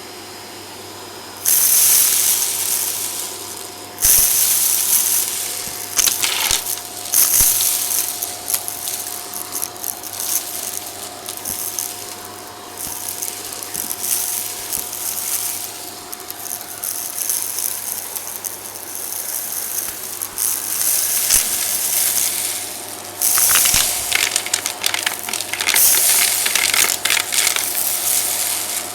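Vacuum cleaner running steadily while its brush attachment is worked over carpeted stairs, with bursts of dense crackling as grit and debris rattle up into the brush and hose. The crackling comes in bouts: one starting about a second and a half in, others around four and seven seconds, and a long run near the end.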